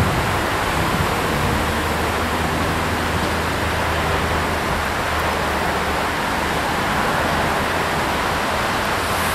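Newag Impuls (36WEa) electric multiple unit rolling slowly into the station: a steady rushing noise with a low hum underneath that fades about six seconds in.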